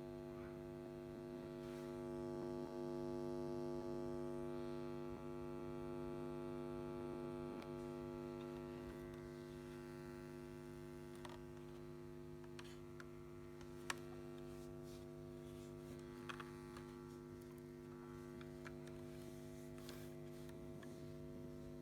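Steady electrical mains hum, a low buzzing drone with several overtones, with a few faint clicks and one sharper click about fourteen seconds in.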